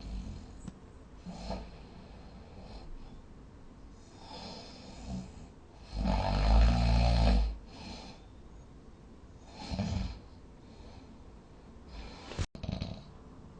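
A sleeping person snoring: separate snores every couple of seconds, with one much louder, longer big snore about six seconds in.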